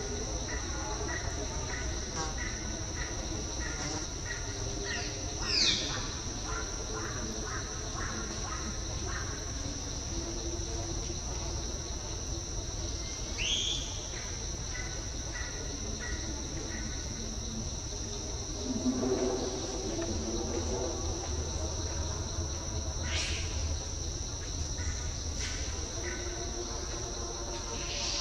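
Steady high-pitched drone of insects in the forest, with a few short high calls standing out over it, about five seconds in, near the middle and later on.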